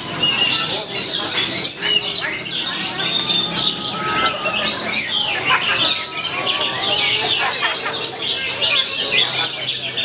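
Several caged oriental magpie-robins singing at once: a dense, unbroken tangle of overlapping quick whistles, trills and chirps.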